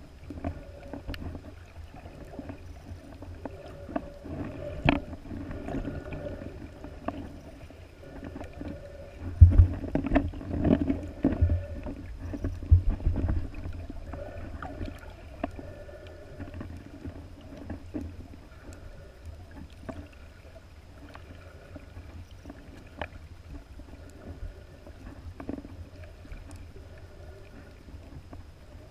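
Muffled underwater sound of a snorkeler swimming with the camera submerged: a steady low rumble of moving water with scattered knocks, and a stretch of heavier thumps about ten to thirteen seconds in. A faint steady high whine runs underneath.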